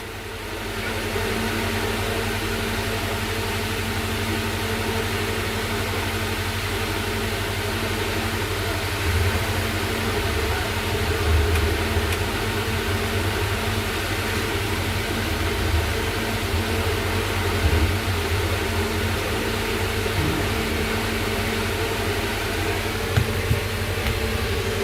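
Steady mechanical hum with hiss, with a few faint low bumps about nine to twelve seconds in.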